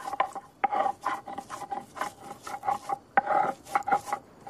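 Medicinal herbs being ground by hand on a flat stone slab: quick, irregular rasping scrapes, several a second, stopping just before the end.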